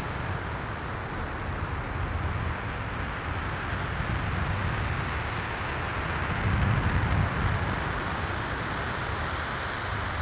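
RS-25 liquid-hydrogen/liquid-oxygen rocket engine firing in a long hot-fire test: a steady rushing noise over a deep rumble, swelling slightly about six seconds in.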